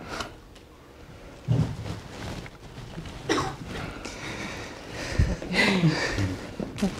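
Scattered brief human vocal sounds, including a cough, with a low thump about a second and a half in and another about five seconds in.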